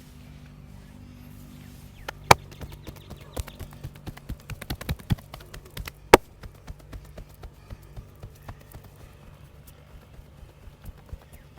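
Massage hand strikes: a rapid, uneven series of sharp slaps and taps starting about two seconds in, with two much louder cracks among them.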